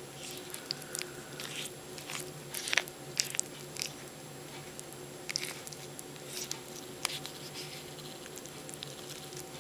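A utensil stirring and lifting creamy pasta in a microwaved frozen-dinner tray: soft wet squishes with scattered light clicks, the busiest about three seconds in, over a low steady hum.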